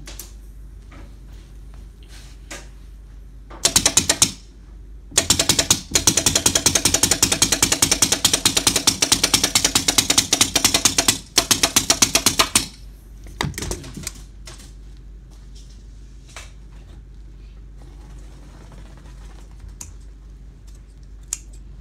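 Pneumatic upholstery staple gun firing staples in rapid runs through fabric into a sofa frame. There is a short burst about four seconds in, then a long run of about six seconds and another of about a second, after which come only a few scattered single clicks.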